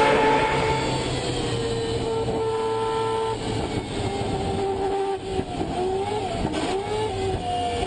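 Mazda 787B's four-rotor rotary engine running at high, steady revs. About three seconds in the pitch drops, then rises and falls several times before holding steady again.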